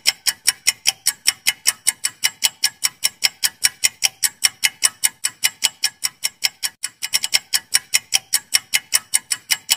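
Countdown-timer sound effect: a clock-like ticking, sharp even ticks at about four a second, marking the time allowed to answer a quiz question.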